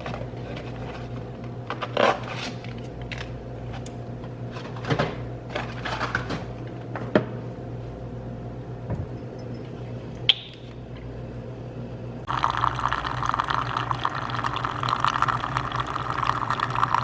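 Kitchen sounds of tea being made: a few sharp clinks and knocks of cups and utensils over a low steady hum, then, about twelve seconds in, a steady stream of water filling a vessel.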